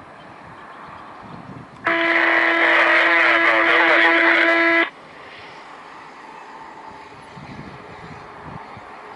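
A loud, steady horn-like tone sounds for about three seconds, starting and stopping abruptly, over a constant outdoor background hiss.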